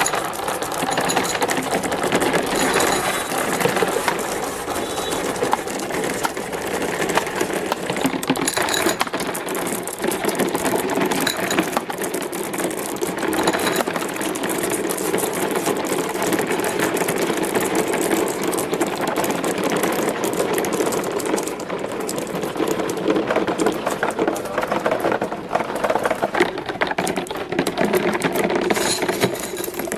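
Many marbles rolling and clattering without pause along plastic marble-run tracks, a dense stream of small clicks and rattles.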